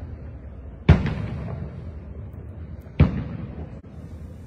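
Two aerial firework shells bursting about two seconds apart, each a sharp boom followed by a long fading echo.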